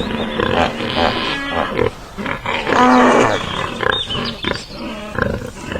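Pig grunting, with a longer squeal about three seconds in.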